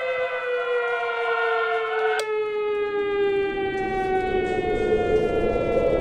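Air-raid siren wailing, its pitch slowly falling. There is a sharp click about two seconds in, and a low rushing rumble swells up over the second half.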